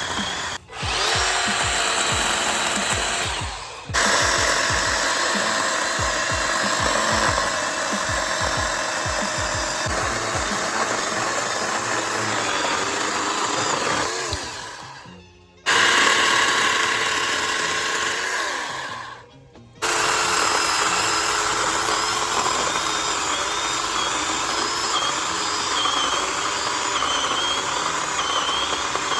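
Greenworks 12-inch 40-volt battery-powered chainsaw running at full speed with a steady motor whine. Three times the sound winds down to a stop and then comes straight back at full speed, as the trigger is let off and squeezed again.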